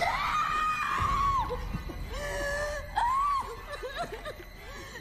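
High-pitched, wordless cartoon voices screaming and squealing in long cries that rise and fall. One cry comes at the start and another about three seconds in, followed by shorter squeaks and laughs.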